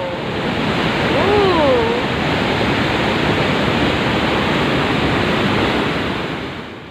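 Steady rushing noise outdoors, with one short, drawn-out vocal "wow" that rises then falls about a second in; the noise fades out near the end.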